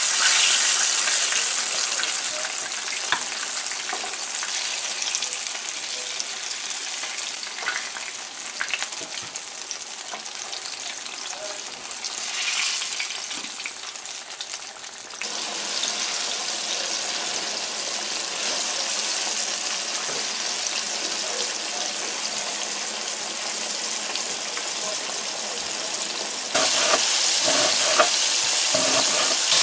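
Flour-coated butterfish fillets sizzling steadily in hot oil in a frying pan, with occasional light clicks of metal spoons against the pan as the fried fillets are lifted out. Near the end, a sharper sound of a knife cutting onion on a wooden board.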